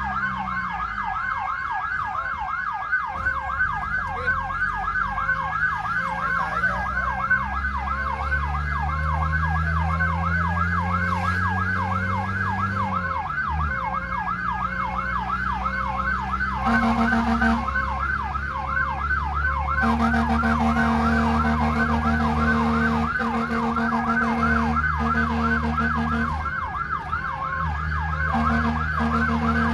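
Fire truck's electronic siren on a fast yelp, rising and falling about three times a second, with the truck's engine running and changing pitch underneath. From a little past halfway, a steady horn blares in long blasts over the siren.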